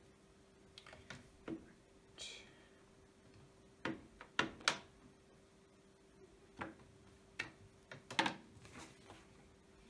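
Scattered clicks and knocks of a hand-set letter stamp and its small type pieces being handled and pressed down on the workbench, the sharpest about four and a half seconds in and again about eight seconds in, with a brief scrape a little after two seconds, over a faint steady hum.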